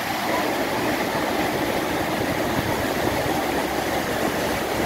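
Steady rushing of a river in flood, muddy water churning and pouring through a low crossing; the rush grows deeper just after the start.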